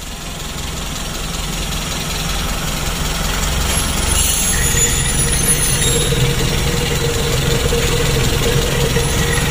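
Freshly rebuilt Suzuki Carry Futura 1.5 carburettor four-cylinder engine idling steadily just after its first start, heard close up with the oil filler cap off the valve cover. It grows louder over the first few seconds.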